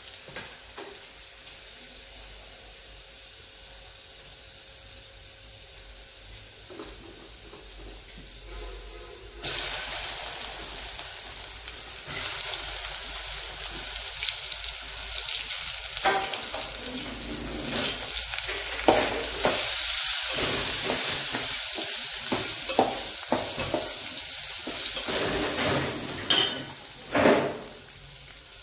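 Garlic cloves and asafoetida sizzling gently in hot oil in a metal pot. About nine seconds in, stuffed okra goes into the oil and the sizzling turns suddenly much louder. The okra is then stirred, with scrapes and sharp knocks against the pot, the loudest near the end.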